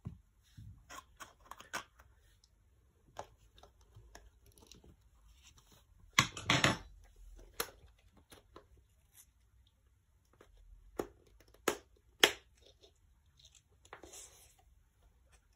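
Handling noise: scattered rustles and small clicks, with one louder rustling scrape about six seconds in and three sharp clicks a little past eleven seconds.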